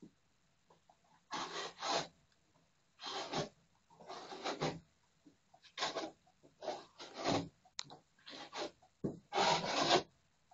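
A hand rubbing over a rough plaster patch in short, irregular strokes, about eight or nine in all, some coming in quick pairs.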